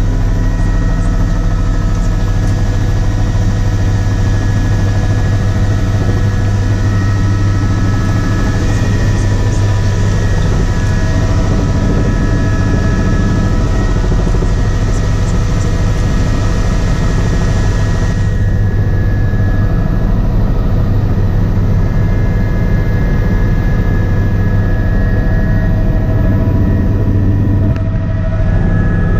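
Helicopter in flight heard from inside the cabin: a steady, loud low rotor and engine drone with several steady whining tones above it. The higher airy hiss drops off suddenly about two-thirds of the way through.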